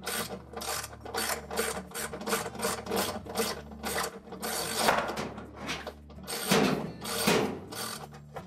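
Ratchet wrench clicking in quick repeated strokes, about three to four clicks a second, as it backs out the 3/8-inch bolts that hold a washing machine's outer tub to its tub cover support.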